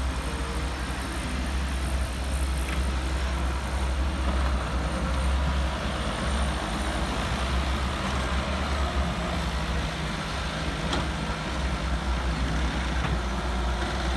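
Heavy diesel engines of an excavator and dump truck running steadily with a deep, even low hum, and a faint knock or two.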